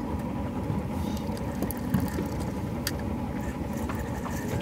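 Boat engine running steadily with a low rumble, with a few scattered light clicks over it.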